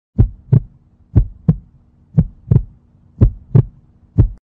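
Heartbeat sound effect: four lub-dub double beats about a second apart, then a single last beat, over a faint steady hum, cutting off suddenly just before the end.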